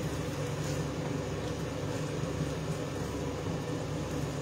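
Kitchen range hood extractor fan running with a steady drone.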